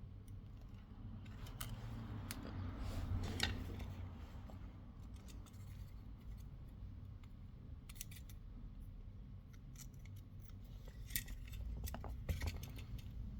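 Faint, scattered metallic clicks and snips of small hand tools working a resistor on a circuit board, over a low steady hum.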